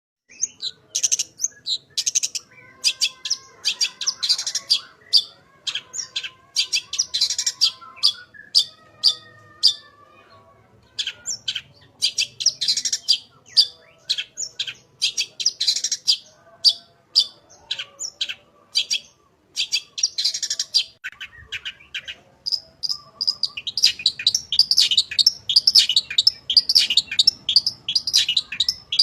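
Long-tailed shrike (cendet) singing a fast run of sharp, scratchy chirps and calls, its song filled with imitated notes of other birds. The song pauses briefly about ten seconds in and becomes denser and more continuous near the end.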